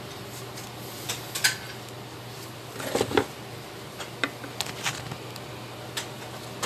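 Scattered clicks and light knocks as a leather-wrapped steering wheel with a bare metal hub frame is handled and turned, the busiest clatter about three seconds in, over a steady low hum.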